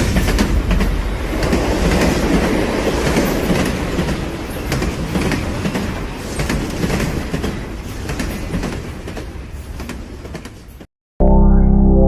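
Train rolling past with a dense clatter of wheel clicks, fading steadily as it moves away until it cuts off about eleven seconds in. Music with sustained tones starts right after.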